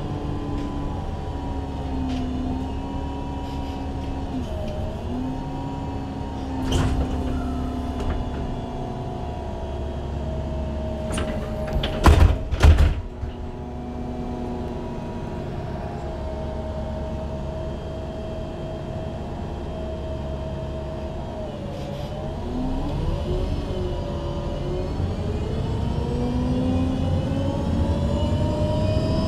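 A MAN Lion's City G articulated CNG bus idles, its engine note wavering slightly. About halfway through the doors close with a couple of sharp thumps. Near the end the engine note rises steadily as the bus pulls away.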